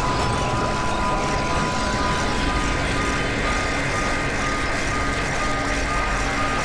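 Sci-fi sound effect of a crashing spaceship: a dense, steady rumbling noise with held alarm-like tones over it, more of the tones joining about two seconds in.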